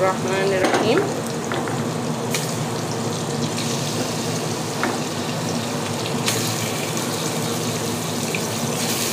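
Beef chunks and bones sizzling as they are added to onions and garlic frying in hot ghee; a steady frying hiss that grows sharper about two seconds in and again about six seconds in.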